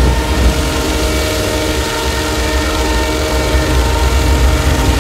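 Loud, dense noise drone with a heavy low rumble and several sustained tones held steady over it, like a passing train or train horn.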